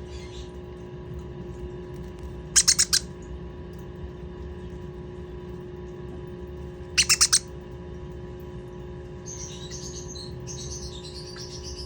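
Green-cheeked conure chick calling: two loud bursts of four rapid chirps about four seconds apart, then softer raspy chattering near the end. A steady low hum runs underneath.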